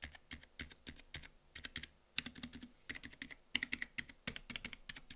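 Typing on a Keychron K7 low-profile mechanical keyboard with Gateron Red linear switches: quick runs of keystroke clicks with short pauses between the runs.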